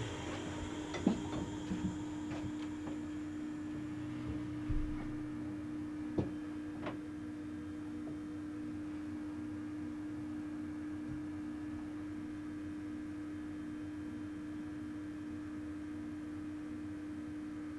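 Steady electrical hum inside the cab of a Rhaetian Railway ABe 4/4 railcar standing at a stop, with a few light clicks and knocks in the first several seconds.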